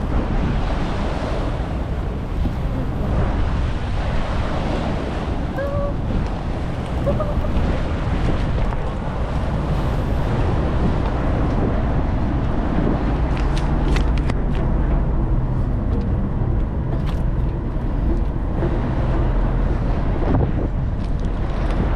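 Wind buffeting the microphone over a steady low rumble and the wash of the sea.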